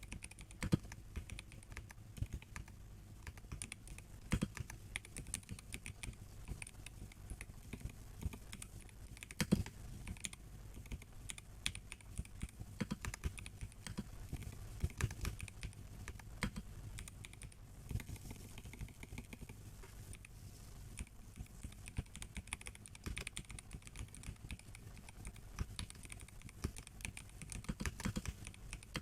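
Continuous typing on a MelGeek Mojo84 mechanical keyboard with a plastic case and brown tactile switches: an uneven run of key strikes, several a second.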